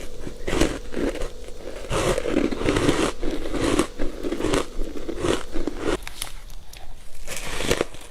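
Close-miked biting and chewing of matcha-coated ice pieces: an irregular run of crisp crunches and crackles, thickest in a few dense clusters.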